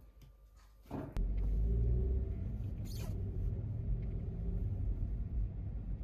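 A brief quiet stretch, then a steady low rumble that starts abruptly about a second in and carries on.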